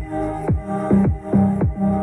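Electronic dance music played through a T&G TG411 portable Bluetooth speaker, with a steady beat of deep kick drums that drop in pitch, a little over two a second, under held synth notes.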